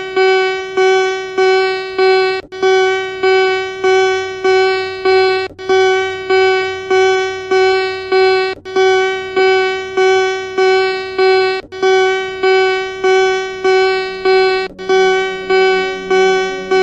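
Emergency alert alarm tone: a loud buzzy beep that repeats about one and a half times a second in groups of about five, each beep starting sharply and fading, with a short break between groups. A low hum runs underneath and steps up in pitch near the end.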